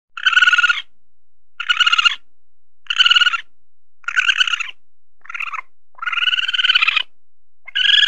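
Raccoon calling: a run of about seven high, wavering calls, roughly one a second, each under a second long, the last two drawn out longer.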